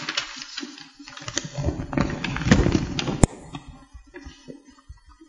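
Rustling and knocking, then a single sharp click a little over three seconds in, followed by faint, light taps and strokes of a marker pen writing on a whiteboard.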